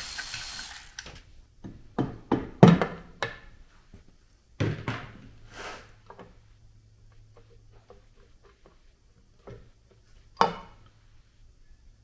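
A cordless ratchet whirs for about a second, then a string of separate clunks and knocks as the tool is set down and the aluminium clutch cover is worked loose and pulled off the motorcycle engine, with two more knocks near the end.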